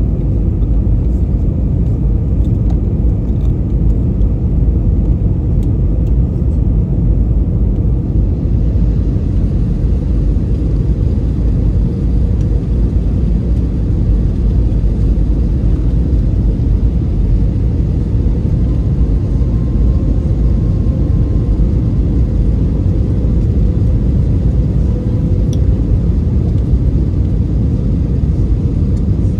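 Steady low roar of an airliner cabin in flight on approach: engine and airflow noise. A faint hum rises slightly above it in the second half.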